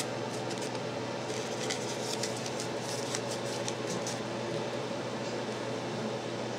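Light crackly rustling of coffee-filter paper being handled for about the first four seconds, over a steady background hum.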